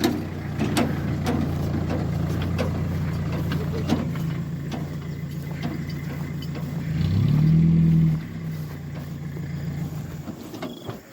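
An engine running steadily at idle, rising briefly in pitch and loudness about seven seconds in, then dropping back and fading away near the end, with a few light knocks and clicks.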